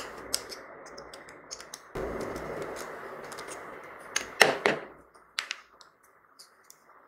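Scattered small clicks and taps of a screwdriver and plastic parts as a ceiling fan regulator's plastic housing is pried open and its insides worked loose, with a few louder clacks around four to five seconds in. A faint steady hiss sits underneath and stops about five seconds in.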